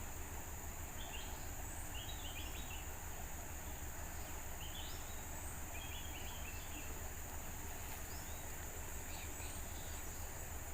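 Steady high-pitched drone of insects such as crickets or cicadas, with short bursts of high chirps every second or two over a low background rumble.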